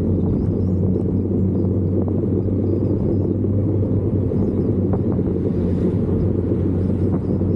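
A vehicle engine running at a steady speed: a constant low rumble with an unchanging hum.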